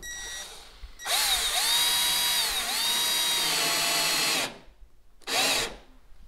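Cordless drill driving a screw through the wooden outer rail into the hull. The motor whines in one long run of about three and a half seconds, its pitch sagging briefly twice as it loads up. A short final burst about five seconds in seats the screw.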